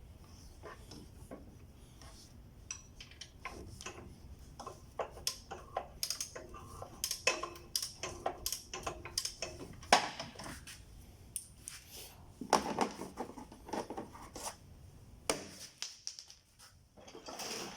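Irregular metallic clicks, clinks and scrapes of a wrench and socket working loose the alternator mounting bolts on a Kia Rio engine, to slacken the serpentine belt.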